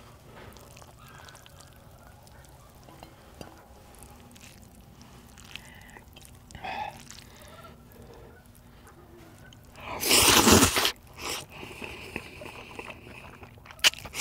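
Mukbang eating sounds: small clicks and handling noises as instant noodles are lifted with chopsticks, then a loud slurp of noodles lasting about a second, about ten seconds in, followed by softer chewing.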